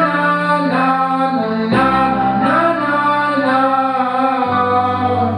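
Young man singing a wordless melodic vocal run into a handheld microphone, over held accompaniment chords that change about two seconds in and again near the end. The voice stops at the very end.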